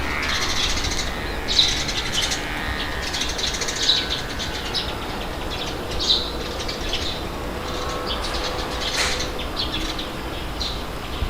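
Outdoor nature ambience: a steady low rush of wind with small birds chirping over it, a short bright call every couple of seconds.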